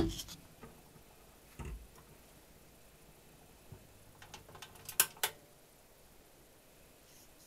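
Record playback cutting off, then faint mechanical clicks and a low thump from the stereo console's turntable as its tonearm goes back to its rest, with two sharp clicks about five seconds in.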